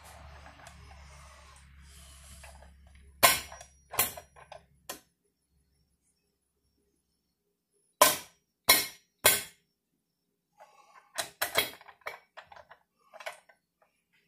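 Metal parts being handled on a John Deere 3120 compact tractor's rear axle housing: a low rustle of handling at first, then sharp knocks and clunks, three a few seconds in, three more in the middle, and a cluster of lighter clicks near the end.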